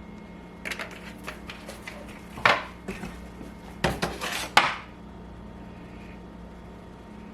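Metal cookware and utensils clattering: a few light clinks, then three loud sharp knocks a little over a second apart, over a low steady hum.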